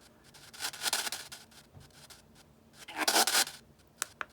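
Spirit box sweep static through the DAS-ANC noise-control speaker, turned down nearly to silence. Two short bursts of hiss come through about a second apart and again about three seconds in. Two sharp clicks follow near the end.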